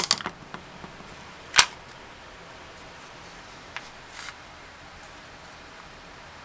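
Sharp clicks and knocks of hard plastic parts as a cheap Harbor Freight speed clamp is taken apart by hand. A cluster of clicks comes at the start, the loudest single click about a second and a half in, and two fainter ones around four seconds.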